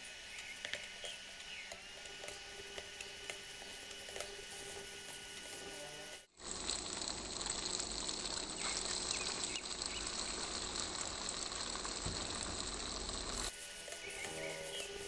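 Rice noodles sizzling in a nonstick frying pan as they are stir-fried, with a spatula scraping and tossing the food. A louder, hissier stretch of frying starts just before halfway and stops near the end.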